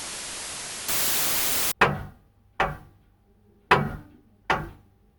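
Radio static hiss that jumps to a louder burst of white noise about a second in and cuts off abruptly, followed by four separate thuds, each dying away over about half a second.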